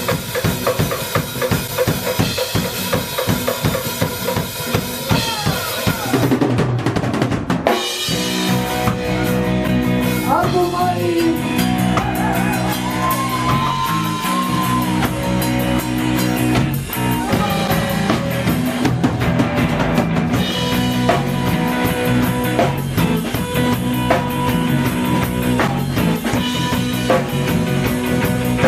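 Live instrumental music from a trio. A drum kit plays busy, fast strokes, then about seven seconds in held bass notes and a melody line come in over the continuing drums.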